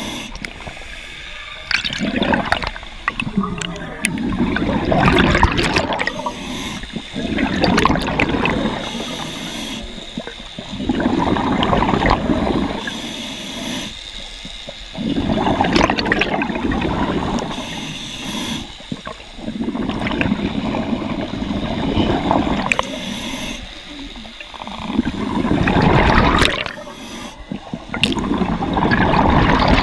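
Scuba diver breathing underwater through a regulator: a short hiss on each inhale and a burst of exhaust bubbles on each exhale, about one breath every three to four seconds.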